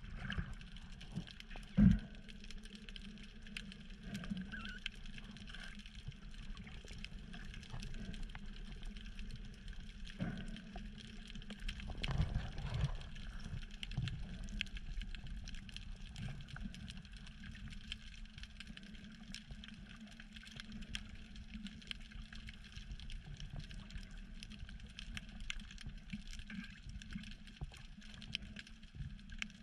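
Underwater ambience picked up by a camera in a waterproof housing: a low, muffled rumble of moving water with a faint, fine crackle over it. A single dull thump about two seconds in.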